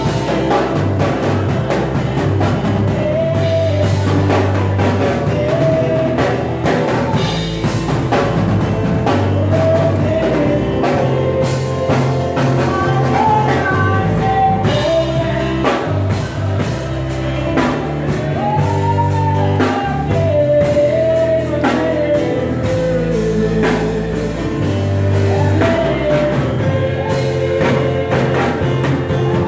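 Gospel music: a sung melody over a band with drum kit and a deep bass line.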